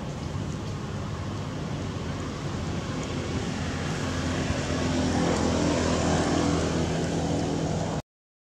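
A motor vehicle's engine running close by, its steady hum growing louder toward the middle and staying loud, then the sound cuts off suddenly just before the end.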